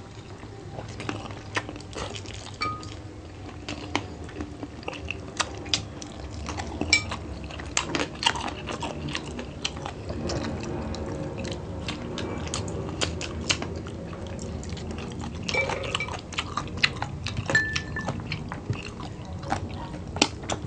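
Close-miked chewing and biting on fried adobo chicken feet, with lip smacks and many short, sharp clicks scattered throughout.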